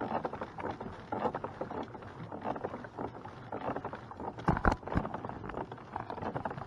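Kayak on the water: a scatter of small knocks and clicks against the hull, with one louder knock about four and a half seconds in.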